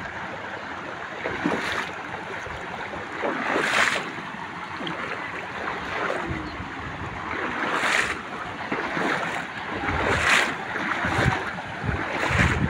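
Steady rush of water pouring over a small cascade into a shallow creek, with gusts of wind on the microphone.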